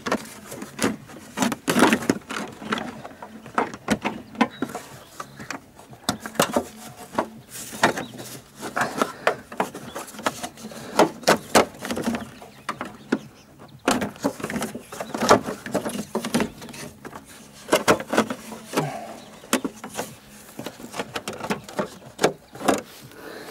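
A hard plastic cowl cover being worked back into place by hand under the windscreen: irregular clicks, knocks and scraping of plastic on plastic.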